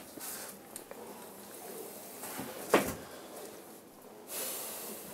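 Handling of a wild boar's severed head and hide on a metal floor: quiet rustling, one sharp knock almost three seconds in, then a brief rush of noise near the end.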